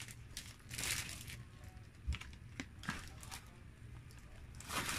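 Paper wrapper around a serving of rice crinkling in short bursts as hands unwrap it, with a few light ticks in between.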